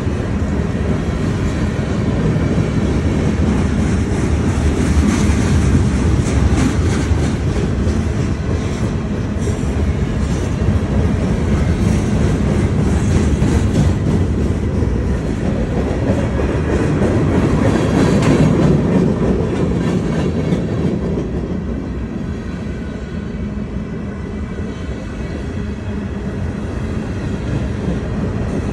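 CSX manifest freight train rolling past: a steady rumble of freight cars on the rails, with clattering from the wheels, loudest in the first two-thirds and easing slightly near the end.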